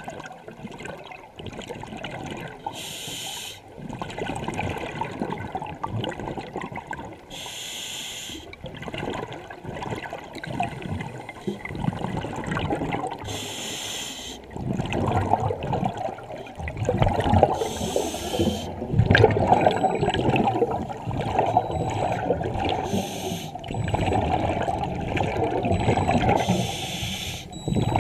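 Scuba diver breathing through a regulator underwater: a short hiss on each inhalation about every four to five seconds, six times, with the bubbling rush of exhaled air between them. The bubbling grows louder in the second half.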